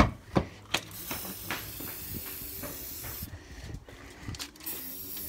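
Aerosol spray-paint can spraying in two long hissing bursts, one from about a second in and another near the end, after three sharp knocks at the start.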